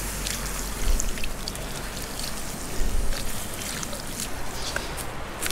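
Water poured from a small camp frying pan onto the hot ashes of a campfire to put it out, trickling and splashing steadily.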